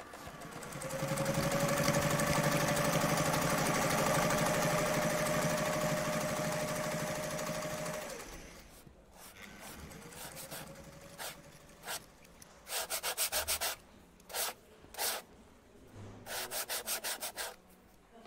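A small motorised tool runs steadily with a held whine for about seven seconds, then winds down. After that come short bursts of quick rasping strokes, like sanding or filing by hand, several strokes a second.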